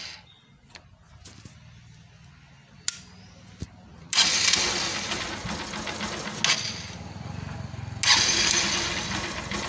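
Hero Ignitor motorcycle's 125 cc single-cylinder four-stroke engine started on its electric starter once the burnt ignition wiring has been bypassed. It runs low and quiet with a few clicks at first, then gets loud suddenly about four seconds in, eases off, and gets loud again about eight seconds in.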